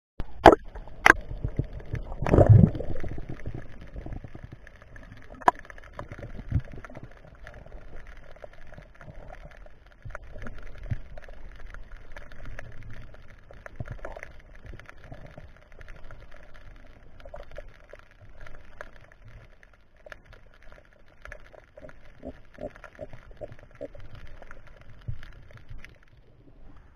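Water heard during a spearfishing dive: a few sharp knocks and a loud rush in the first few seconds, then a steady watery wash with scattered small clicks and gurgles.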